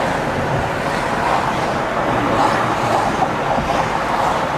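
Steady road noise of a car driving on a highway, heard from inside the moving car.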